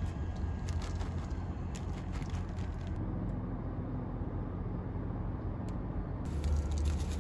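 Light crackles and clicks from a clear plastic salad clamshell being handled and opened in the first few seconds, over a steady low hum.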